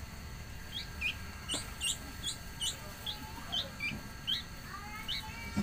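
A small bird giving a series of short rising chirps, two or three a second, about a dozen in all.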